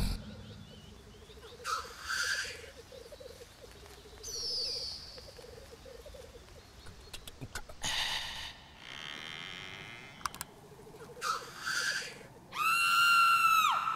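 Black grouse calls: a low, rapidly pulsing bubbling coo through the first half, with several short hissing calls. Near the end comes the loudest sound, a steady pitched tone with overtones, about a second long, that drops in pitch as it stops.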